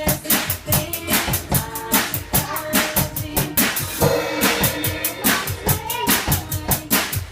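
Drum kit played with fast, steady strikes of drums and cymbals, mixed with music that has some singing in it.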